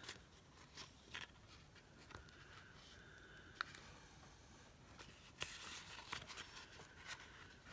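Faint rustling of a paper sticker sheet being handled and flexed, with a few light ticks, the sharpest about three and a half seconds in.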